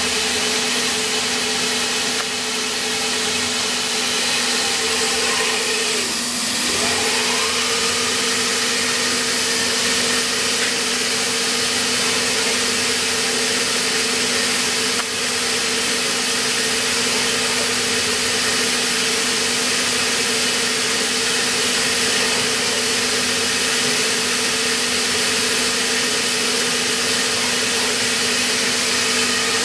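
Rambo 5V CNC vertical milling machine running: a steady mechanical hum with a constant tone and a high hiss. About six seconds in, its pitch dips briefly and swings back up.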